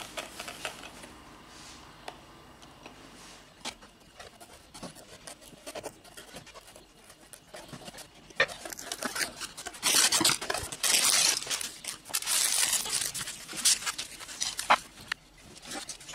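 A small cardboard Lego box being handled and opened: scattered taps and scrapes, then a knife slitting the box's seal and several seconds of loud rustling and tearing of the packaging, with a few sharp clicks near the end.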